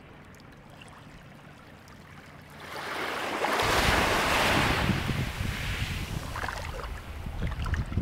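Sea wave surging: a rushing swell that builds a little under three seconds in, peaks and fades. Wind buffets the microphone with a low rumble from about midway.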